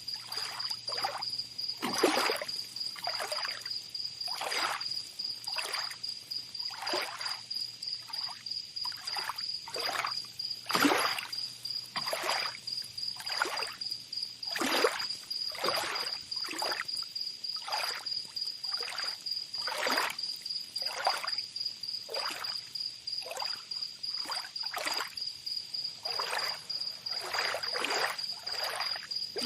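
Water splashing in short swishes, one or two a second, over a steady high pulsing insect trill.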